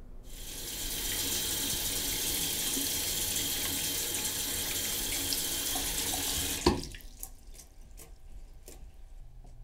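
Bathroom sink tap running steadily onto hands being rinsed in the basin, then shut off with a sharp knock about seven seconds in, followed by a few faint clicks.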